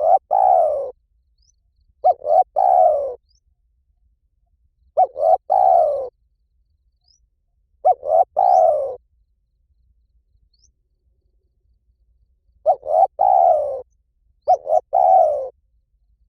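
A spotted dove cooing in six phrases, each a couple of quick clipped notes followed by a longer coo that falls in pitch. The phrases come every two to three seconds, with a longer pause in the middle. Faint high chirps of small birds are heard between them.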